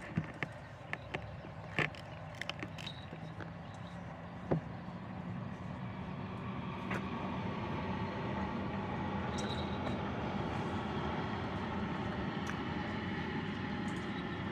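Motor vehicle on the road approaching, its engine hum and road noise growing gradually louder over several seconds. A few sharp clicks come in the first seconds.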